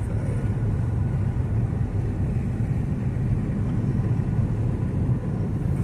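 Steady low rumble of a car driving, heard from inside the cabin: tyre and engine noise at an even road speed.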